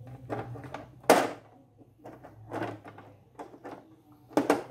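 Plastic frame of an LCD TV being set and snapped onto the backlight panel: a sharp clack about a second in, a few soft knocks, then a double clack near the end.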